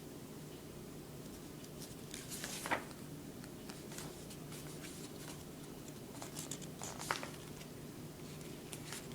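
Packaging and filter parts being handled: soft rustling and small knocks, with two sharper clicks about three and seven seconds in, over a steady low hum.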